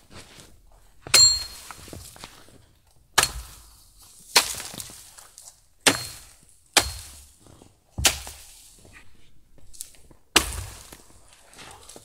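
A blade chopping into wood: seven sharp chops at uneven intervals, a few of them with a brief metallic ring.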